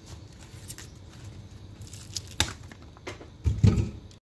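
Green sweet-corn husks rustling and crackling as the ear is pulled free of them, with scattered sharp crackles. A louder low thump comes near the end.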